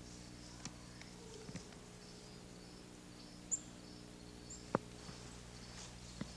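Faint outdoor ambience over a steady low hum, with a few brief high chirps and a handful of sharp clicks; the loudest chirp comes about three and a half seconds in and the loudest click just before five seconds.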